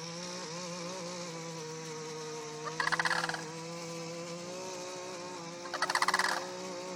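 Sandhill cranes giving two short rolling, rattling calls, about three seconds apart, over a steady low hum.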